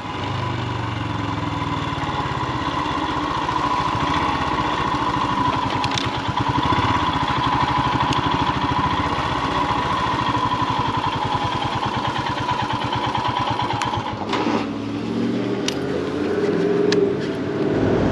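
Royal Enfield Himalayan's single-cylinder engine running while riding. About fourteen seconds in the sound drops and the engine note goes lower as the bike slows and pulls up.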